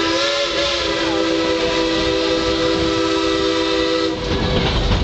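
Steam locomotive whistle blowing one long chord of several notes. It wavers briefly near the start and cuts off suddenly about four seconds in. After that, the rumble of the moving train cars.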